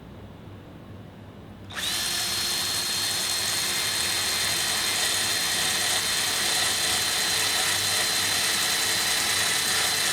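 Electric drill with a drill bit switching on about two seconds in and running steadily with a high whine, grinding metal off a bicycle brake caliper where the chain rubs against it.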